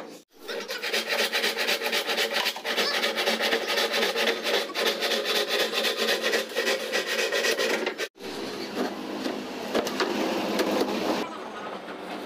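Plywood being scraped in rapid, even strokes. About eight seconds in it cuts off abruptly and gives way to softer, less regular scraping.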